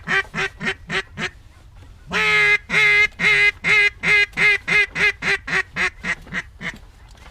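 Duck call blown in mallard hen quacks: a run of quacks tapering off about a second in, then a second run opening with a long loud note followed by a dozen or so shorter quacks that fade away, the calling used to turn passing ducks back toward the decoys.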